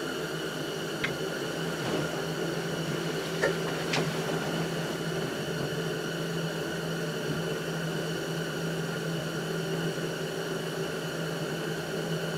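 Steady hum with a few faint light clicks about one, three and four seconds in.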